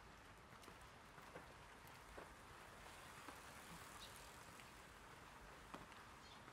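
Light rain falling on an umbrella: a faint steady hiss with scattered sharp drop ticks, about one a second.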